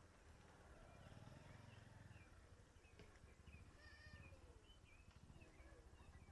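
Faint outdoor ambience, close to silence: distant animal calls and short high chirps over a low rumble.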